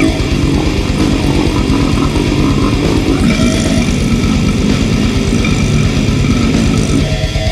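Death metal song: heavily distorted guitars over a rapid, even low drum pulse.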